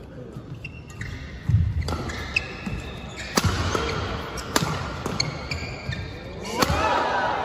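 Badminton rally: rackets strike the shuttlecock hard with sharp cracks, about five loud hits spaced unevenly a second or so apart, which ring out in a large hall. Short squeaks are heard between hits.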